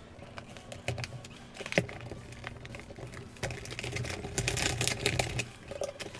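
Utility knife cutting a clear plastic blister away from a cardboard toy card, with the stiff plastic crackling and clicking irregularly, busiest about four to five seconds in.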